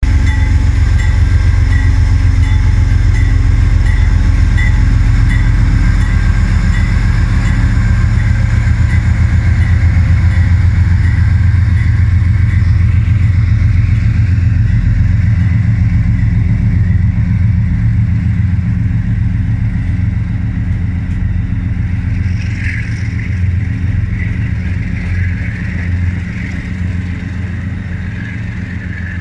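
A passenger train passing close by, hauled by a GE B32-8WH diesel-electric locomotive. The engine's deep rumble is loudest at first, then the coaches roll past and the sound fades steadily as the train pulls away.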